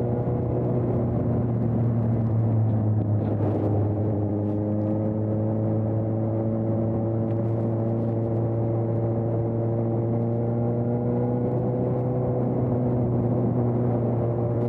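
2020 Suzuki GSX-S750's inline-four engine, fitted with an aftermarket Storm exhaust, running steadily on the road under light throttle, its pitch rising slowly as the bike gains speed.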